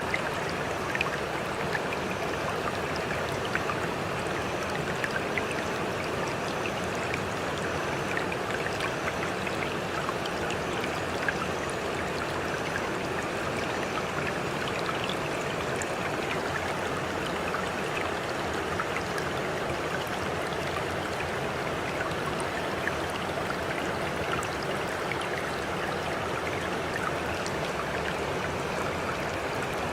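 Running water: a steady, even rush with small splashes and drips scattered through it.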